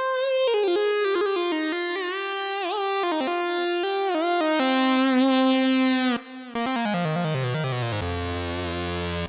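Sequential OB-6 analog polysynth playing a bright, buzzy lead patch: held notes with vibrato and short melodic moves, a brief gap about six seconds in, then a run of notes stepping steadily downward into the bass that stops abruptly at the end.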